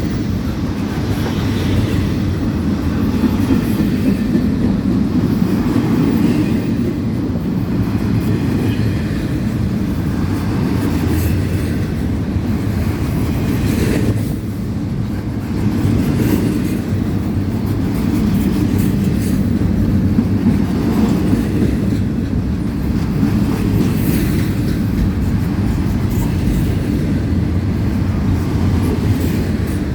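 Freight train rolling past: a steady, loud rumble of wheels on rail, dipping briefly about halfway through.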